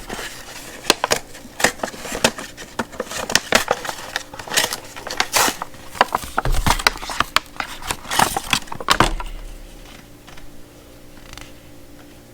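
Packaging being handled and opened to take out a pair of safety glasses: a quick run of rustles, clicks and scrapes that dies down about nine seconds in, leaving a few faint ticks.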